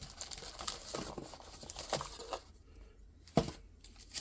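Light rustling and small clicks of an optic's box contents and packaging being handled, with one sharper click about three and a half seconds in.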